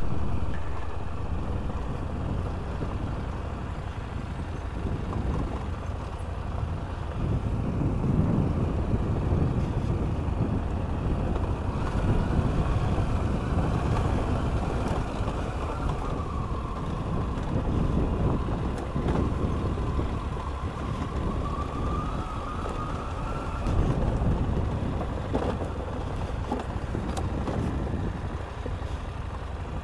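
KTM 890 Adventure R parallel-twin engine running as the bike rides a rough gravel track, its note rising and falling with the throttle through the middle of the stretch.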